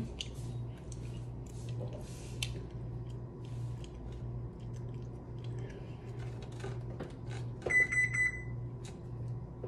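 Fingers tapping the buttons of an oven's electronic control panel, with one electronic beep about eight seconds in, over a steady low hum.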